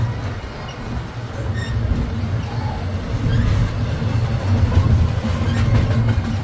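Long freight train rolling past, its cars making a steady deep rumble on the rails with a few faint clicks.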